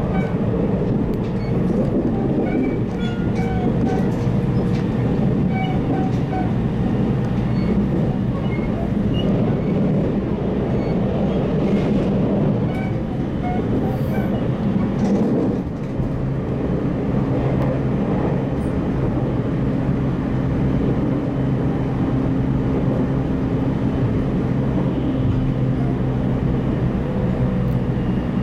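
Running noise inside a JR Central 313 series 8000 subseries electric train car under way: a steady rumble of wheels on rail with a low hum, a few faint ticks, and a brief dip in loudness about halfway through.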